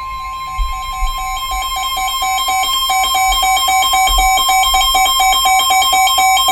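NOAA Weather Radio's steady 1050 Hz warning alert tone, signalling that a warning message is about to be broadcast. Over it, a second electronic alarm beeps several times a second, alternating between two pitches and growing louder.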